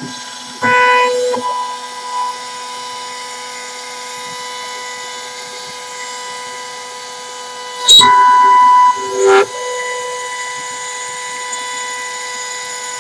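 CNC router spindle running with a steady high whine as the bit mills a pocket into a wooden box call blank. The noise grows briefly louder as the cut bites, about a second in, and again for about a second and a half near eight seconds in.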